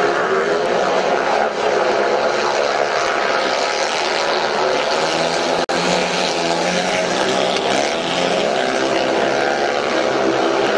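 Several 500cc single-cylinder speedway motorcycles racing flat out, a loud continuous din of open exhausts whose pitch wavers up and down as the bikes pass and take the bend. The sound cuts out for an instant a little past halfway.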